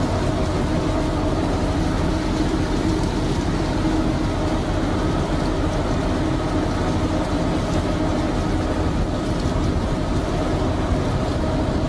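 A ship's machinery runs with a steady drone and hum, over the wet, sliding rush of a mass of Alaska pollock pouring out of a trawl net into a steel fish bin.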